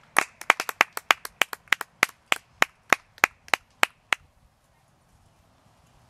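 One person clapping their hands about twenty times, quickly at first and then slowing, stopping about four seconds in.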